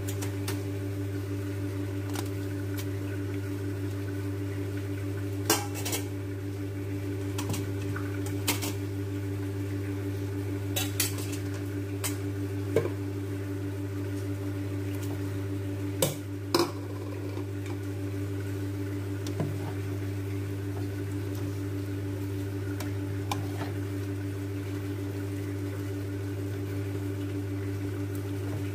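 A kitchen utensil clinking and knocking against a stainless steel pot, about a dozen scattered strikes, over a steady low hum.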